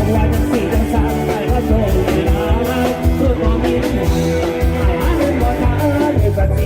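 Live band on a Thai rot hae parade sound truck playing loud dance music, with a steady drum beat, heavy bass and a singing voice.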